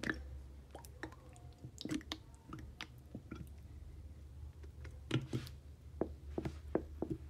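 Ketchup being squeezed out of a plastic squeeze bottle, squelching in irregular short bursts, the loudest about five seconds in, over a low steady hum.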